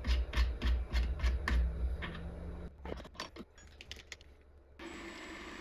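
Metallic clicking from hands setting up a small benchtop milling machine, about three or four clicks a second for the first two seconds, then a few scattered clicks. A steady whir starts abruptly near the end.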